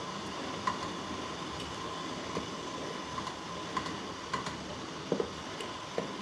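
Wooden spatula stirring thick carp roe in a steel bowl over a steam bath, with light clicks against the bowl about once a second over a steady hiss and a thin steady tone.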